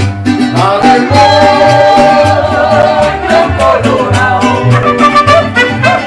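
Live mariachi band playing: violins over a guitarrón's steady bass beat, with a woman singing through the first half.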